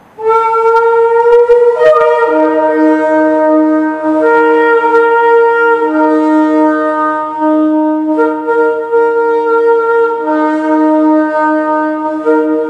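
A long Yemenite shofar blown in one long, loud blast that starts high and drops to a lower note about two seconds in, then holds, wavering between two notes with brief breaks.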